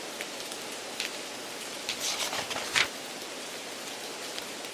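Steady rain-like hiss with a few short crackles about one and two to three seconds in. It is the background noise laid under an English listening-test recording to mimic a poor exam-room sound system and noisy surroundings.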